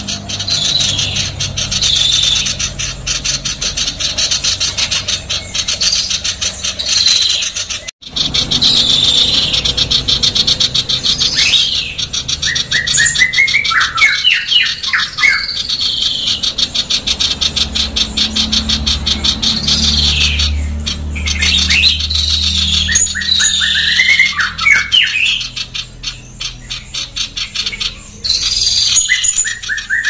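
Female common iora calling nonstop: a fast, harsh, rasping chatter, broken every so often by quick runs of rising whistled notes.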